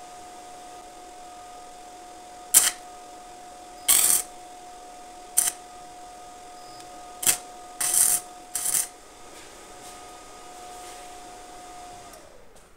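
An arc welder striking six short tack welds on a steel bicycle frame. Each is a brief, loud crackle; two of them last a little longer. A steady thin whine runs underneath and stops near the end.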